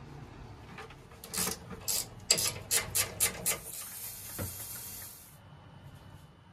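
A run of about eight quick rasping strokes, then a steady high hiss of about two seconds that cuts off suddenly. These are servicing noises on an oil burner as its nozzle, filter and strainer are changed.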